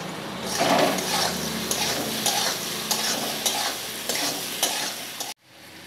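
Metal spatula stirring and scraping sliced raw papaya frying in mustard oil in a metal kadai, with a steady sizzle and repeated scrapes against the pan; the sound cuts off abruptly near the end.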